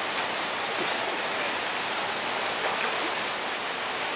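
Steady rushing of running river water, a continuous wash of noise from the flowing river.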